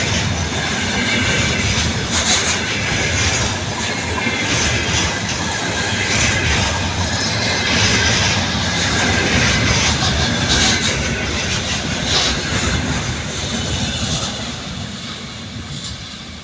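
Container train wagons rolling past on the rails: a steady rumble of wheels on track with sharp clatters from the wheels, fading as the last wagons move away near the end.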